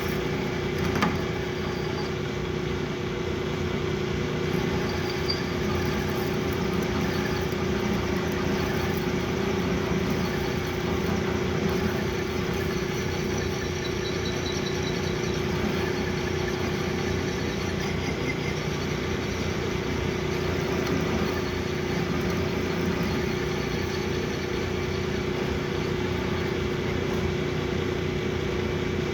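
Metal lathe running steadily with a constant hum, a brief knock about a second in.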